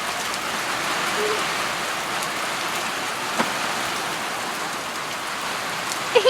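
Rain falling steadily, an even hiss, with a single sharp tap about halfway through.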